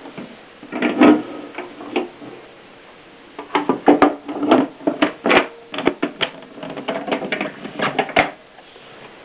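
Adler Tippa portable manual typewriter being typed on: a short run of keystrokes about a second in, a pause, then a longer, faster burst of typing from about three and a half seconds to about eight seconds.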